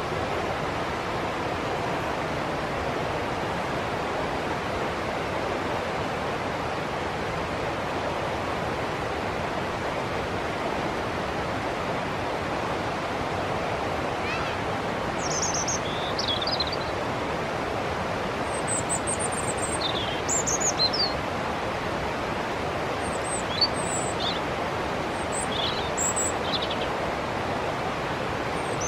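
A river rushing steadily, with short high bird chirps coming in about halfway through and continuing, scattered, to the end.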